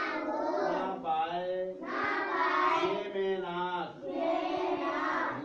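A group of children reciting together in a sing-song chant, in four phrases of one to two seconds each.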